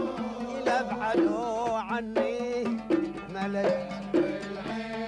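Gulf sawt music: oud and violin play a melody over a steady beat on mirwas hand drums, in an instrumental passage between sung lines.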